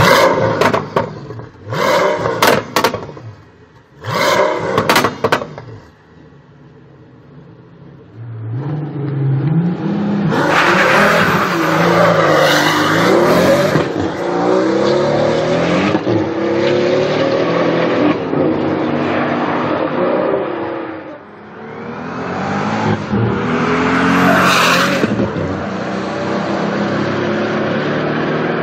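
Pagani Huayra BC's twin-turbo V12 blipped in a few sharp revs, then pulling hard under full throttle through several upshifts, its pitch rising and falling back at each shift. A brief let-off is followed by a second hard pull near the end.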